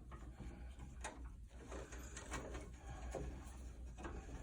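Scraping, clicking and knocking of metal parts as the blower motor assembly of an Amana PTAC unit is worked loose past a bracket, over a steady low hum.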